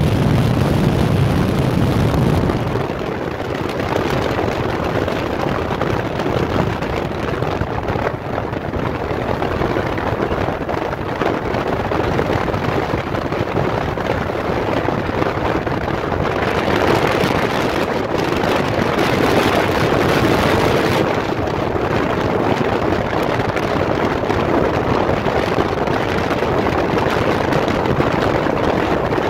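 Steady rush and rumble of a vehicle driving on a dirt road, tyre and road noise mixed with wind, turning brighter and hissier for a few seconds after the middle.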